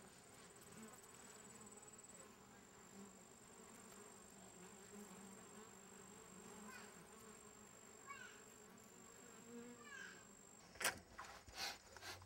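Faint, steady buzzing of honey bees at open beehives. A few sharp knocks and clicks come near the end.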